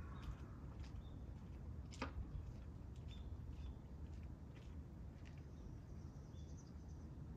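Faint outdoor ambience: a steady low rumble with scattered short bird chirps, and one sharp click about two seconds in.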